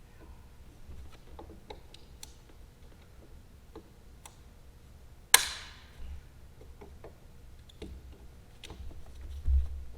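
Scattered light clicks and taps of a metal hand tool working at a broken lag screw in a wooden stage floor, trying to get a grip on it. One sharp metallic strike about five seconds in rings briefly, and a dull bump follows near the end.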